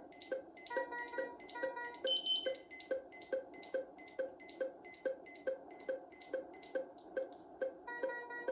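Philips IntelliVue MP30 patient monitor alarm: groups of multi-pitch alarm beeps over a fast, regular heartbeat beep of about two and a half a second. The alarm tones stop after about a second and a half and come back near the end, when a steady high tone also starts.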